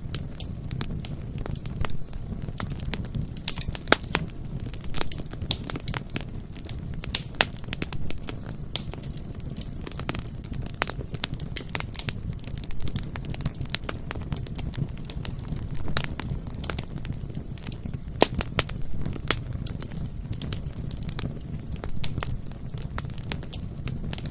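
Bonfire crackling: frequent irregular sharp pops and snaps of burning wood over a steady low rumble of the flames.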